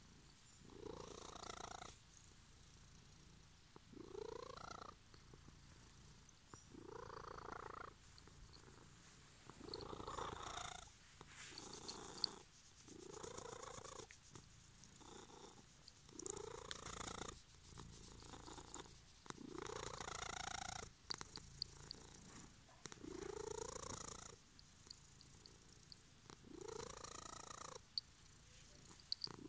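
Domestic cat purring loudly while being stroked. The purr swells with each breath, about every three seconds. There is a brief sharp click about twelve seconds in.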